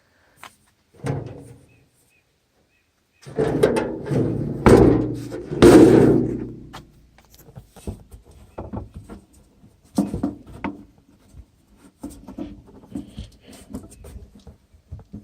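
Clunks, thuds and rattles of a parked mower's panels and cab door being handled with the engine off. There is a single thump about a second in, a heavier run of clunks a few seconds in, and lighter knocks after that.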